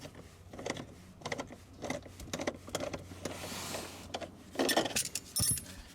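Light repeated clicks and scrapes of hand tools and metal hardware as a battery hold-down bracket is tightened, with a louder clatter about five seconds in.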